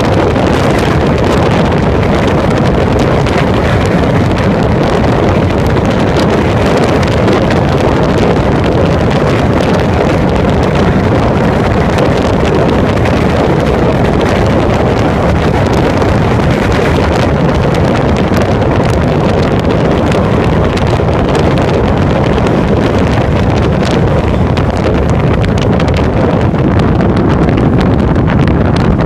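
Wind buffeting a phone microphone held in the gap of an open window on a moving V-set double-deck electric train, mixed with the steady rush and rumble of the train running.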